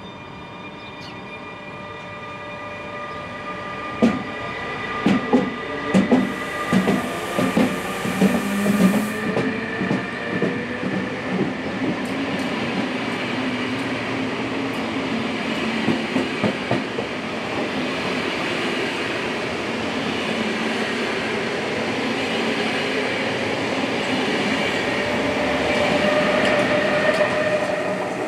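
SBB Re 460 electric locomotive departing with a train of double-deck coaches: its traction equipment whines in steady and slowly rising tones as it gathers speed. Wheels clack sharply over rail joints as the locomotive and first coaches pass, from about four to twelve seconds in, with a brief high hiss about seven seconds in, and the running noise swells near the end.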